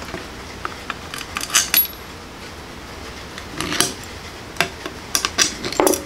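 Small metal parts and screws clinking and clattering on a workbench as a servo is fitted by hand onto a wiper motor. The clicks come in irregular clusters, about a second and a half in, near four seconds, and several in quick succession near the end.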